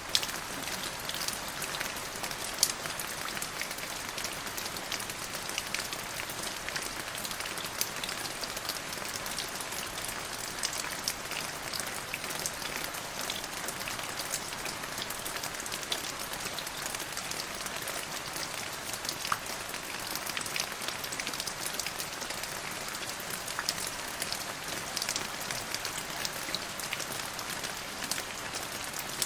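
Steady rain falling on a hard surface: a dense, even hiss with many individual drops ticking through it, and one sharper drop hit about three seconds in.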